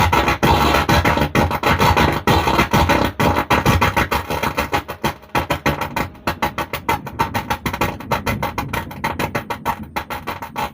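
A song played through the Stranger PBT 800 mono amplifier into a speaker, coming out with a distorted, broken-up sound that the repairer traces to a fault in the amplifier's driver board. It gets quieter through the second half.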